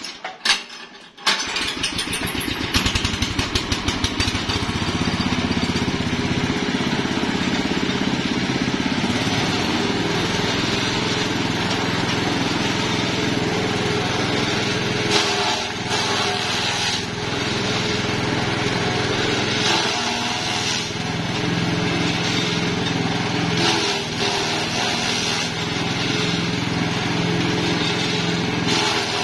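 Small engine of a grass chopper starting about a second in and quickly speeding up, then running steadily. From about halfway on, the sound changes unevenly as napier grass stalks are fed into the chopper and shredded by its blades.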